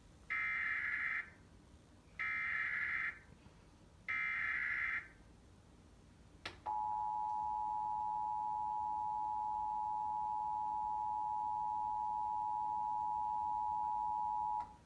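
Emergency Alert System test tones: three short bursts of the SAME data header, each just under a second and spaced about two seconds apart. After a click, the two-tone attention signal comes in and holds steady for about eight seconds.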